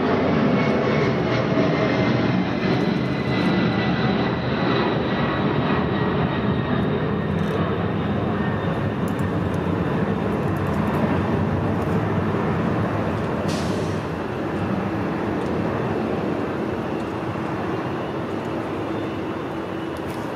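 Boeing 757-200 freighter's twin Pratt & Whitney PW2040 turbofans at takeoff power, a steady broad roar that slowly fades as the aircraft climbs away. A faint whine slides slightly down in pitch over the first few seconds.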